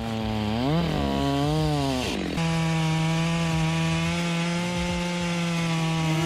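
Two-stroke chainsaw revving up and down twice, then running at a steady, lower pitch as it cuts through wood.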